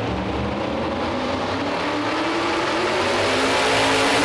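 Outlaw 4x4 pulling truck's engine at high revs under load, its pitch climbing steadily and getting louder near the end as the truck starts dragging the sled.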